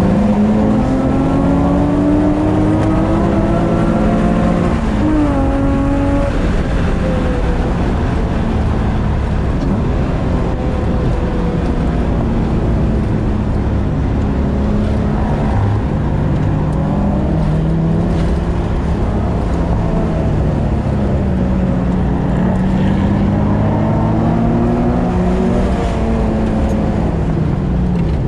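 Mazda Miata's engine under track driving, heard from inside the cabin, its pitch climbing and falling repeatedly as the car accelerates and slows through corners, with a sudden drop about five seconds in. A steady rush of road and wind noise runs underneath.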